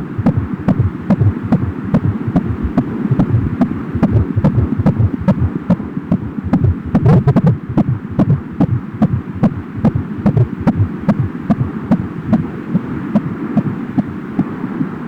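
Fetal heartbeat picked up through an Angel Sounds home fetal Doppler at about five months of pregnancy: fast, even pulsing, a little over two beats a second, with a sharp click on each beat over a low pulsing noise.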